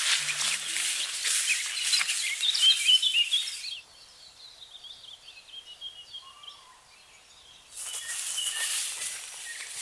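Woodland songbirds singing, with quick chirping phrases. For the first few seconds, and again near the end, a loud crackling hiss covers them, such as rustling or running water. In the middle only the birdsong is left.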